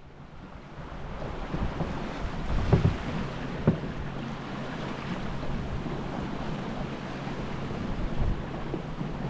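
Water rushing along the hull of a small junk-rigged sailboat under sail in choppy water, mixed with wind buffeting the microphone. The rush builds over the first couple of seconds, with a couple of low thumps about three seconds in.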